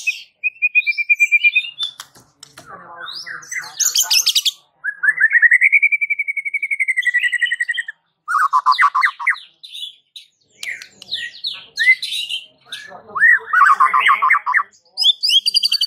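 White-rumped shama singing a varied song. It mixes clear whistles, a long rapid trill in the middle, and buzzy rattles, with quick high chattering notes between phrases.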